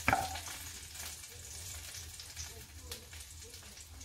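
A sharp knock of a wooden spoon against a metal pot right at the start, then soft dabbing and scraping as thick curry-ketchup sauce is spooned onto sliced sausage, over a faint steady crackling hiss.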